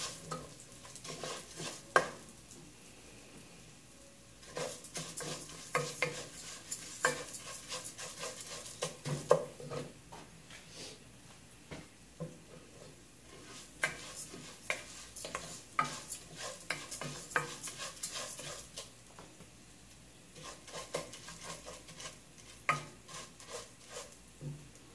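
Wooden spoon stirring and scraping dry rice grains around a nonstick pot as the rice toasts in hot oil, in irregular spells of clicks and scrapes with short pauses between. A light sizzle of the frying rice runs underneath.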